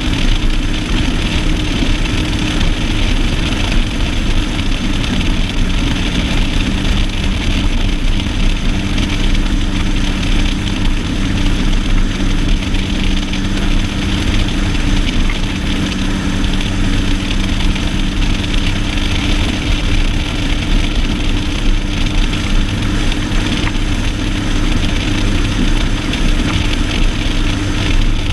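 Outboard motor of a Stratos 201 Evolution bass boat running at a steady pitch, over a steady hiss.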